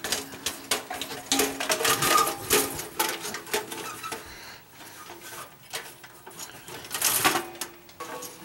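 Stainless-steel toaster shell being slid back down over the chassis by hand: sheet metal scraping, clicking and rattling against the frame, with a louder clank about seven seconds in.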